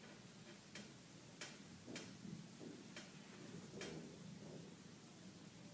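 Five faint, sharp clicks at uneven gaps of about half a second to a second, over a quiet room.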